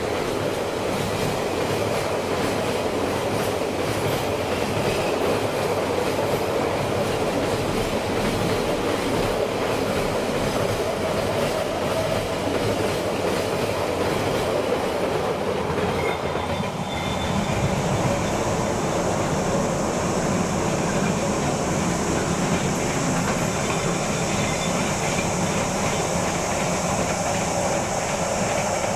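Diesel-hauled container freight train passing close at speed: the locomotive goes by, then a long run of loaded container wagons with rapid clickety-clack of wheels over rail joints and points. About 17 seconds in the clatter gives way to a steadier rumble with a high hiss as the train pulls away.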